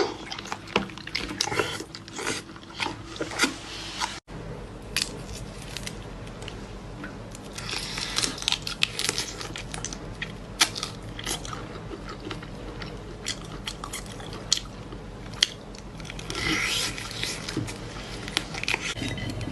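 Close-miked chewing and biting, with many sharp crunchy clicks and wet mouth sounds.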